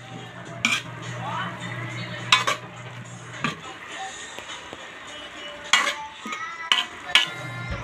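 A spatula scraping and turning shredded cabbage in a metal wok, with several sharp clanks of the spatula against the pan, over a low steady hum that drops out briefly near the end.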